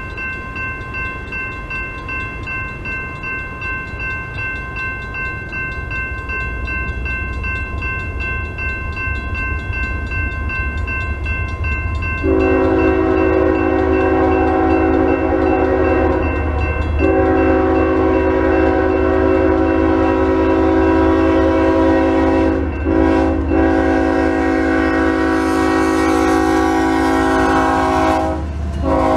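A grade-crossing warning bell rings steadily over the low rumble of an approaching diesel freight locomotive. About twelve seconds in, the locomotive's air horn starts sounding the crossing signal of long, long, short, long, and another blast begins near the end.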